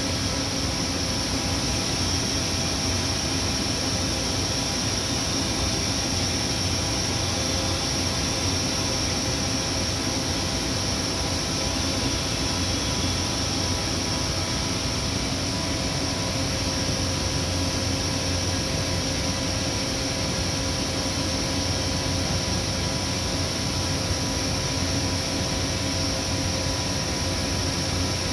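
Giddings & Lewis 72-inch CNC vertical boring mill running with its rotary table spinning: a steady mechanical hum and whine with several held tones and a hiss above them.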